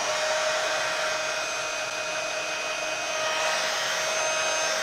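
Embossing heat tool blowing hot air steadily, a constant rush with a faint motor whine, melting black embossing powder on a stamped image.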